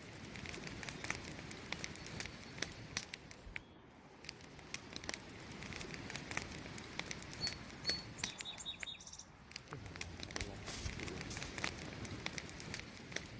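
Burning wood crackling and popping irregularly in a campfire over a steady hiss. A short high chirp sounds briefly about halfway through.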